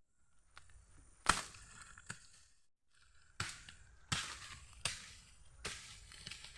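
A series of about seven sharp cracking strikes, irregularly spaced less than a second apart, each with a short crackly tail, with a brief silent break a little before halfway.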